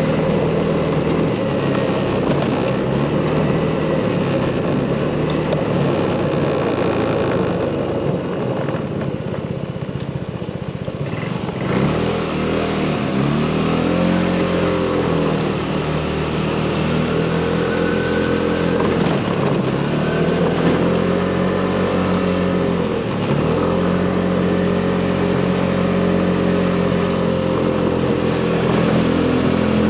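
Motorcycle engine heard from the rider's seat over wind and road noise: running steadily, easing off for a few seconds, then pulling away with the engine note climbing and briefly dropping about three times, as with upshifts.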